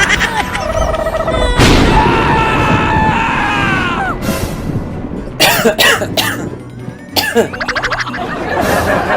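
Background music, with several sharp, sudden sounds over it, a cluster of them near the middle.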